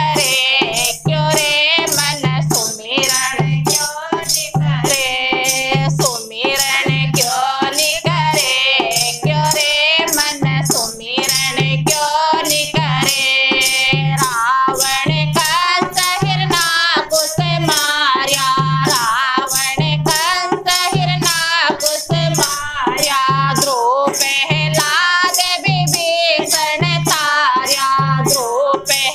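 Women singing a Hindi devotional bhajan, with a dholak drum keeping a steady beat and small handheld rattles shaken in time with it.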